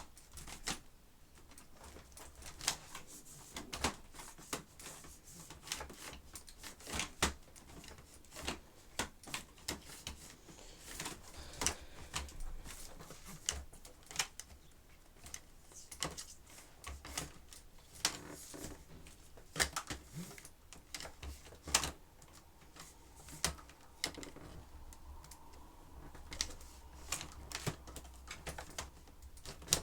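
Irregular sharp clicks and light knocks, a few every second or two, with no motor running: hard objects being handled.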